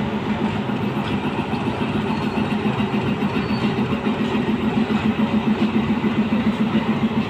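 Meter-gauge diesel locomotive engine running steadily: a continuous low hum with a slight regular throb.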